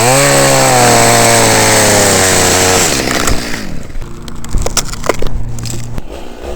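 Chainsaw engine starting up suddenly and held at high revs for about three seconds, then easing back to a lower, steady idle that stops near the end, with a few knocks.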